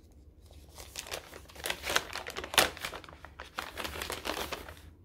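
Stapled paper gift bag crinkling and rustling as it is pulled and torn open, with the sharpest crackle about halfway through.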